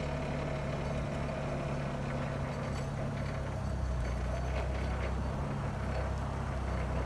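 Forklift engine running steadily at low revs while the forklift drives slowly across gravel.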